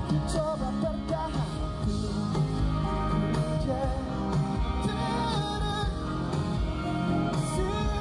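Live pop-rock band playing a song with a male vocalist singing over electric guitars, bass, drums and keyboards, heard from the audience through a festival PA.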